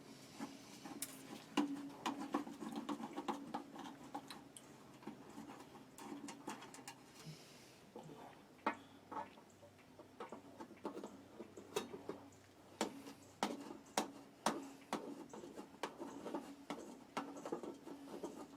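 Irregular small clicks and taps of a screwdriver and screws as the access cover on an electric water heater is unscrewed and handled, over a faint steady hum.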